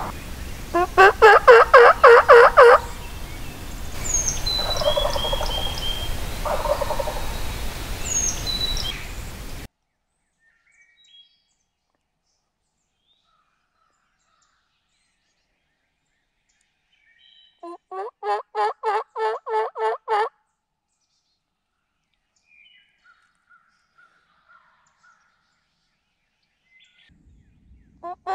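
Wild turkey gobbling three times. Each gobble is a rapid rattling run of about two seconds, heard about a second in, midway, and again at the very end. A few other bird calls sound between the first two gobbles.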